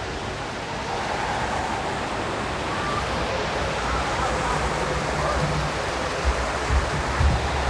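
A steady rushing noise like running water, with faint distant voices, and a few low thumps near the end.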